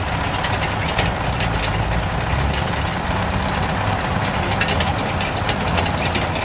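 An engine running steadily in a low, even rumble. From about three and a half seconds in, a scatter of light, sharp clicks comes over it.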